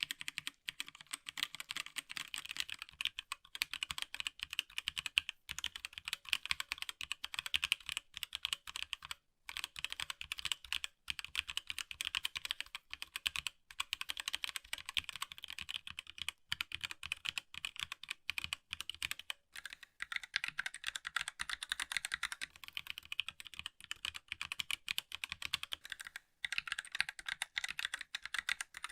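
Fast, continuous typing on a HyperX Alloy Origins Core TKL mechanical keyboard with HyperX Aqua tactile switches: a dense run of crisp key clacks, with a few short pauses.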